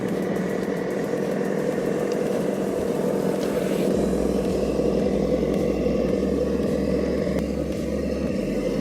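MST J45C RC crawler truck driving, with a steady mechanical hum from its drivetrain and a low rumble that grows stronger about four seconds in.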